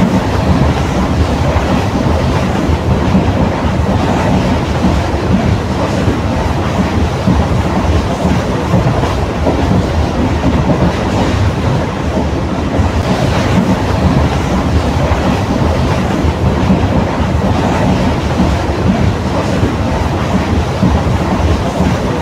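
ICF passenger coach running on the line, heard from its open doorway: a loud, steady rumble and clatter of the wheels on the rails.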